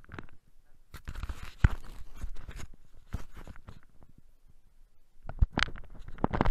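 Boots crunching through deep, dry snow close by: quick, irregular crunches about a second in, easing off, then again near the end.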